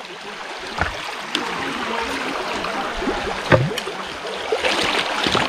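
Shallow stream water rushing and rippling past a bamboo raft, with three short thuds spread through it.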